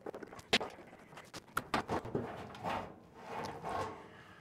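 Scattered light clicks and taps, with soft rustling, from hands working at a range's sheet-metal back plate and power cord; the sharpest click comes about half a second in.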